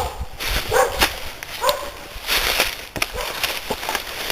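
A dog barking several times, short barks about a second apart, with scattered sharp clicks between them.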